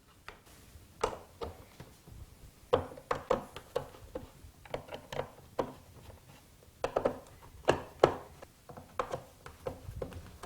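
Irregular clicks and knocks of a screwdriver working out the screws from the plastic base plate of a Hoover Hurricane upright vacuum cleaner.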